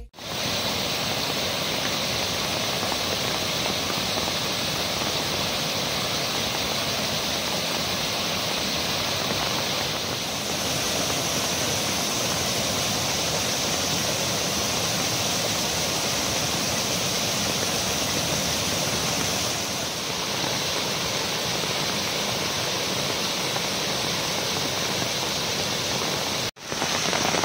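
Muddy, storm-swollen runoff rushing over rocks and churning in a stone channel: a steady rushing of water that briefly cuts out near the end.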